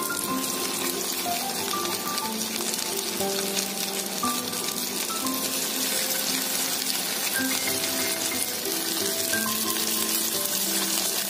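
Breaded chicken pieces deep-frying in hot coconut oil: a steady, dense sizzle that starts suddenly as the first piece goes in and keeps up as more pieces are added.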